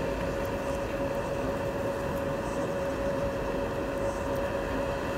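Steady background drone: a constant hum over an even hiss, unchanging.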